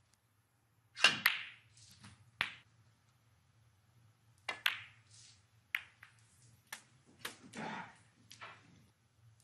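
Snooker balls clicking: the cue tip striking the cue ball and the cue ball knocking into the object balls. It comes as a series of sharp clicks with quiet between, the loudest pair about a second in.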